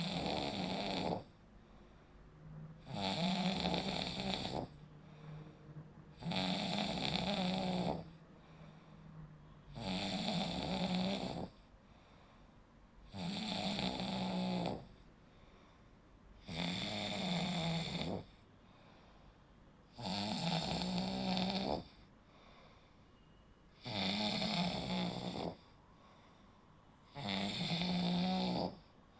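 A person snoring in a steady rhythm: nine loud snores, one about every three and a half seconds, each lasting a second and a half or so with a low buzzing tone, and quiet gaps between them.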